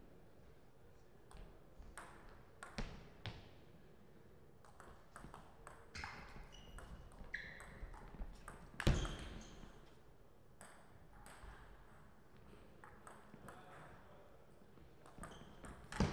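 Table tennis ball clicking off rubber-faced paddles and the table, sharp separate ticks of play. The loudest hit comes about nine seconds in, and a hard smash lands at the very end.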